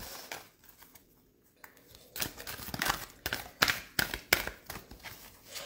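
A deck of oracle cards being shuffled by hand: after a short pause, a quick, irregular run of clicks and slaps from about two seconds in.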